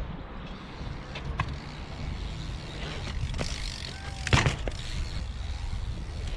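Bike tyres rolling over skate park concrete with a steady low rumble, and one sharp knock about four seconds in as the bike comes down from a foot jam whip.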